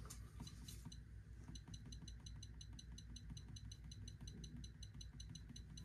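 Carrier Infinity touchscreen thermostat giving short, faint, high beeps as its up arrow is pressed to raise the heat setpoint: a few spaced beeps, then a quick run at about five a second.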